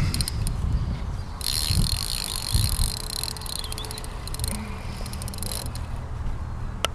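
Fixed-spool fishing reel clicking rapidly for about four seconds, starting about a second and a half in, while a hooked carp is played on the rod. A low wind rumble runs underneath, and there is one sharp click near the end.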